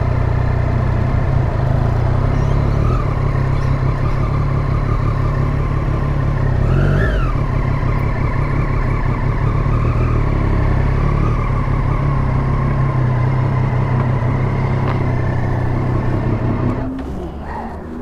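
Sport motorcycle engine running, with steady wind noise on the helmet microphone under it. About seven seconds in, the engine note briefly rises and falls again, and the sound gets quieter near the end.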